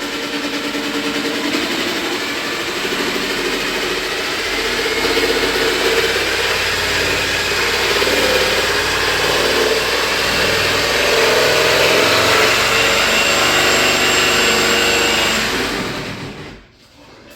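Electric jigsaw cutting through a wooden board, its motor pitch shifting up and down as the variable-speed trigger is worked; it stops about sixteen seconds in.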